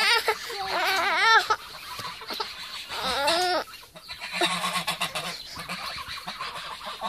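Domestic geese calling: two long, wavering honks, the first at the start lasting about a second and a half, the second shorter, about three seconds in.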